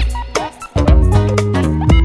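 Background music with a steady beat, a bass line and pitched melody notes.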